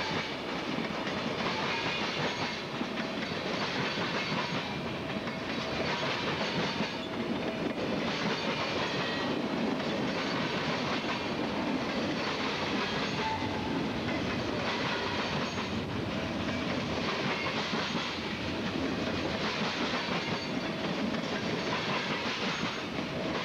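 Heavy freight train cars rolling past, steel wheels clattering over the rail joints in a continuous roar that swells every second or two as each set of wheels goes by.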